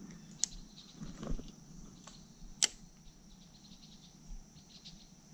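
Light spinning rod and reel being worked for a cast: a few sharp clicks, the loudest about two and a half seconds in, with a brief soft swish a little over a second in. A faint steady high-pitched hum runs underneath.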